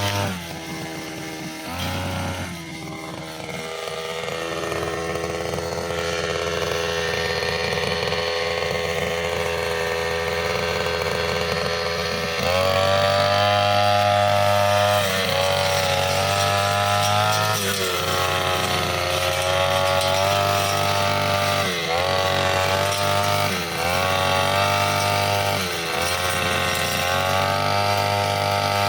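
Brushcutter fitted with a metal cutting blade running at high revs. The engine drops back about a second in and climbs again, then in the second half its pitch dips and recovers again and again as the blade bites into tough grass and small woody stems.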